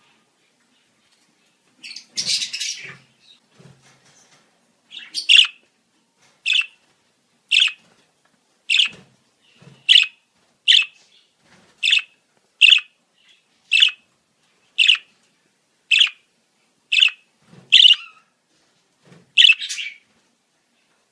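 Budgerigars calling: a short burst of rough chatter about two seconds in, then a run of sharp, high chirps at roughly one a second.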